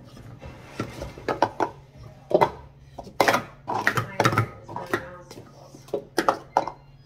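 Plastic sport-stacking cups clattering as they are rapidly stacked up and brought down on a stacking mat during a speed-stacking cycle: quick runs of sharp clacks and taps, densest about three to four and a half seconds in.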